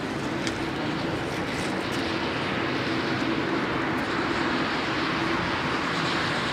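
Four GEnx turbofan engines of a Boeing 747-8 jumbo jet running on the runway: a steady jet rush with a constant hum underneath, growing slightly louder about two seconds in.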